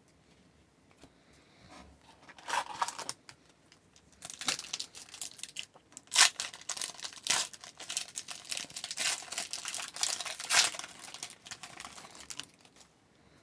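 Trading card pack wrapper being torn open and crinkled by hand: irregular crackling and ripping that starts about two seconds in and stops shortly before the end.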